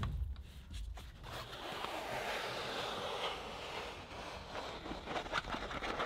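Duronic 50-inch roll-down projector screen being pulled out of its housing: a steady rustling hiss of unrolling fabric for about three seconds, followed by a few light clicks as it is handled at the bottom.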